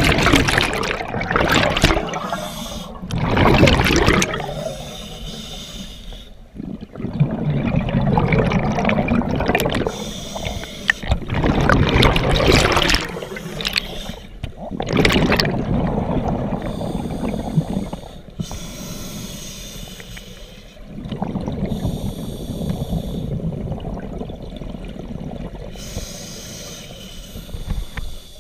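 Scuba diver breathing underwater through a regulator: loud rushes of exhaled bubbles come every few seconds, with quieter, bubbling water noise between them.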